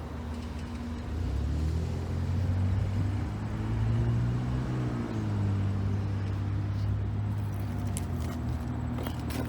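A motor vehicle or machine engine running steadily, its pitch rising a little and settling back about four seconds in.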